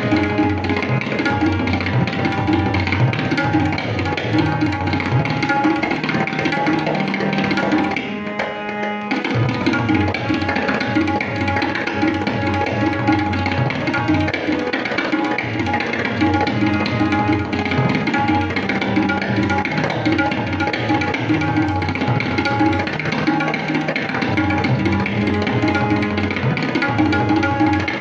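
Tabla solo in teental: fast strokes on the dayan and the bass bayan over a repeating harmonium lehra. About eight seconds in, the bass strokes drop out for about a second while the higher strokes and harmonium carry on.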